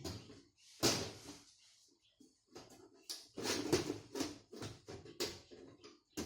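Side panel of a desktop computer case being fitted back on and latched: a string of knocks, clicks and short scrapes, the loudest about a second in and a busy cluster just past the middle.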